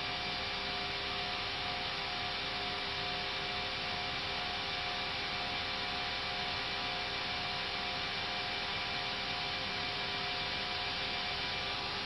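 Steady cockpit noise of an Airbus A320 climbing out after takeoff: an even rush of air with a constant hum of a few fixed tones.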